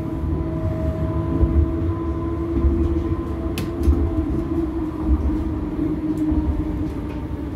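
Siemens-Duewag NGT6DD low-floor tram running at speed, heard from inside the passenger compartment: a steady low rumble of wheels on track with a steady whine over it, and a couple of sharp clicks about three and a half seconds in.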